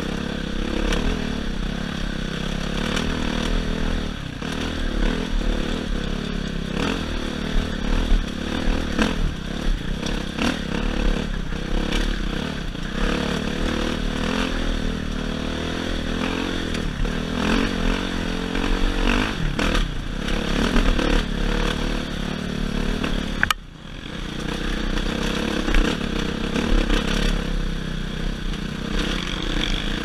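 Dirt bike engine running under throttle along a rough trail, its pitch rising and falling as the rider rolls on and off the gas, with clattering knocks from the bike over bumps. About three-quarters of the way through the sound drops away sharply for a moment, then picks back up.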